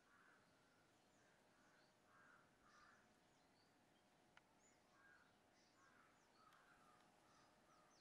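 Faint crows cawing again and again in the background, with thin high chirps from small birds.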